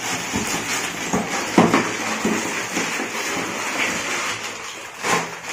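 Plastic packaging and bubble wrap crinkling and rustling as parts are handled, with a few light knocks.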